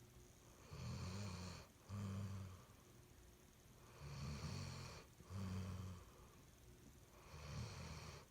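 A sleeping pet snoring through three slow breaths about three seconds apart, each breath a two-part snore: a hissy one followed by a low buzzing one.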